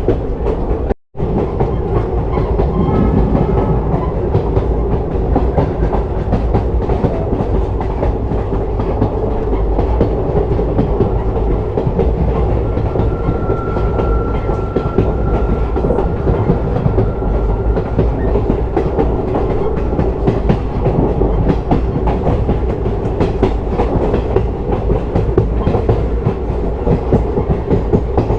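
Passenger train running along the track, heard from on board, with a steady rumble and wheels clacking over the rail joints. A faint steady high whine sounds through the middle, and the sound cuts out for an instant about a second in.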